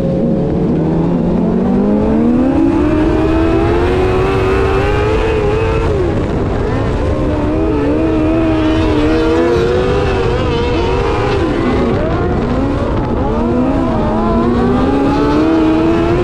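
Engine of an open-wheel dirt-track race car heard from its own cockpit, revving up and dropping back repeatedly as it accelerates down the straights and lifts for the turns.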